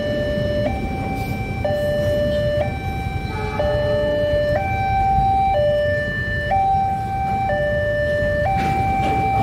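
Railway level-crossing warning alarm sounding a two-tone hi-lo, switching pitch about once a second. Under it runs the low rumble of a passing train of fuel tank wagons.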